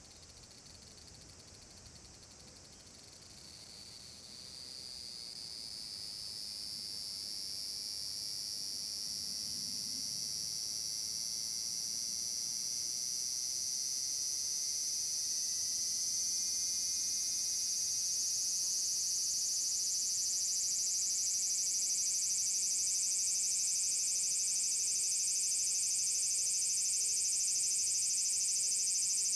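Large brown cicada (aburazemi) singing a long, steady, high-pitched buzz that starts faint a few seconds in and swells louder over about twenty seconds, then holds at full strength.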